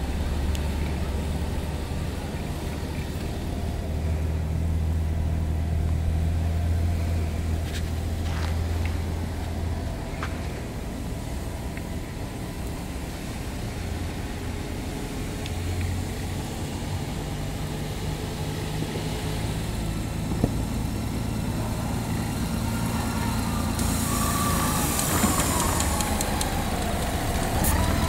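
Honda Gold Wing's flat-six engine running at low revs as the touring motorcycle rolls slowly, a steady low hum that swells and eases slightly. Near the end a higher whine glides in above it.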